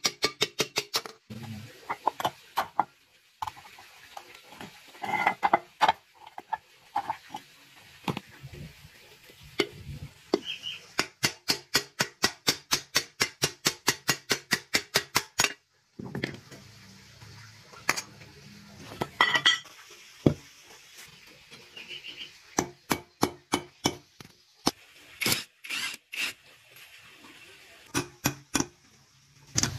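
Metal hand tools clinking and tapping on the metal parts of an air compressor, with several runs of quick, even clicks about four or five a second.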